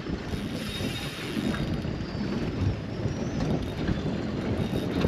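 Wind buffeting the microphone, a steady rough rumble with no clear rhythm.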